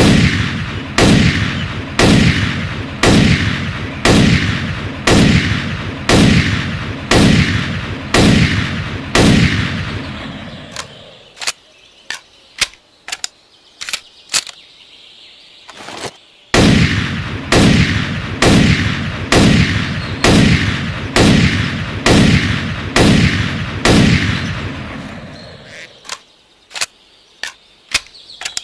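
SKS semi-automatic rifle firing about ten shots, roughly one a second, each with a ringing tail. This is followed by several seconds of quieter, sharper clicks, then another string of about nine shots at the same pace, and more clicks near the end.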